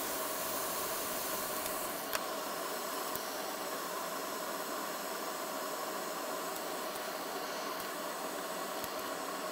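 Steady fan-driven airflow hiss from microsoldering rework bench equipment, with a faint fan hum underneath and a couple of small clicks about two and three seconds in.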